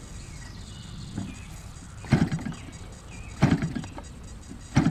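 Engine of a large radio-controlled Extra 300 model airplane being hand-flipped by its propeller for starting. Three flips, about one and a half seconds apart, each giving a short sputter that dies away without the engine catching.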